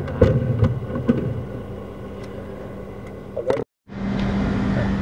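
Knocks and clatter from a drain inspection camera head being handled as it comes out of the pipe, fading to a low rumble. After an abrupt cut, a steady machine hum with one constant low tone.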